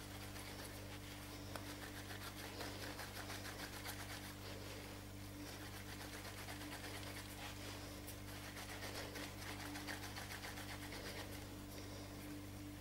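Faint, repeated soft rubbing of palms rolling a strand of roscón dough back and forth on a granite worktop, over a steady low electrical hum.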